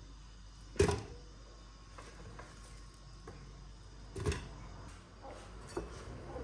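Kitchen clatter while cooking: two sharp knocks, about a second in and again past four seconds, with a few light clicks between and after.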